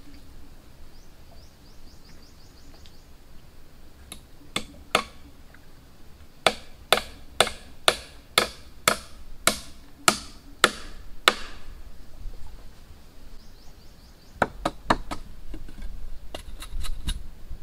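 Wood being chopped with a hand tool: a run of about a dozen sharp strokes, roughly two a second, then a pause and a quicker cluster of strokes near the end.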